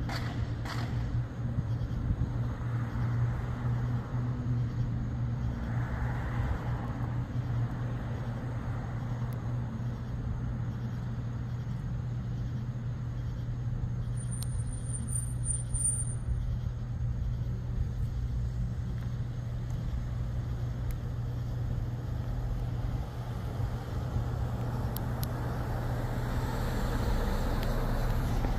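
Car traffic on a city street, with vehicles passing over a steady low hum. A car passes louder and closer near the end.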